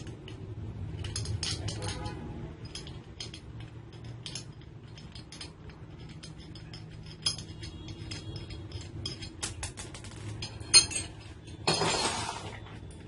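Small metal parts and tools clicking and clinking as they are handled, with a sharp clink about eleven seconds in followed by a short scraping rustle.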